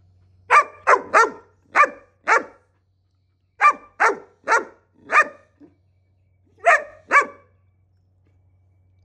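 Five-month-old Deutsch Drahthaar (German wirehaired pointer) puppy barking, about eleven barks in three bunches of five, four and two. It is demand barking for the training bumper held above it.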